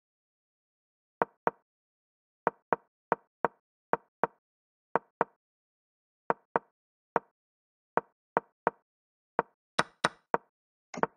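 Digital chess board's move sound effects: a quick series of short wooden-sounding clacks, mostly in pairs, one for each piece move as a blitz game is played through. Near the end the clacks come faster, with one longer, different-sounding clack.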